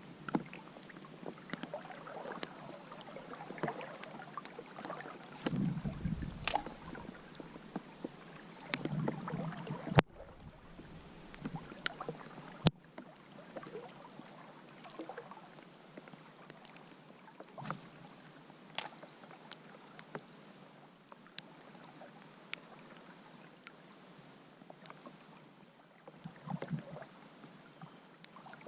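Creek water sloshing and splashing, with scattered light clicks and knocks and two sharp clicks about ten and thirteen seconds in.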